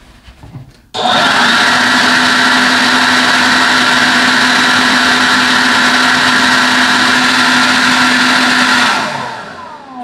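DEWALT 20V MAX XR brushless cordless leaf blower switched on about a second in and running at full speed, a steady motor whine over a loud rush of air, its nozzle pressed into a dryer vent duct to blow out lint. Near the end it is released and winds down, its pitch falling.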